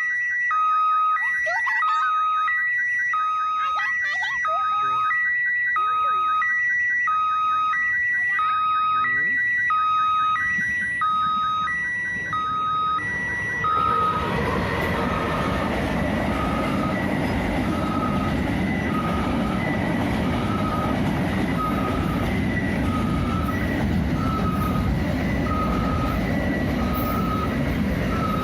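Railway level-crossing warning alarm repeating a two-tone ding-dong, a lower and a higher tone alternating about once a second. About halfway in, a freight train arrives and its wagons rumble steadily past under the alarm.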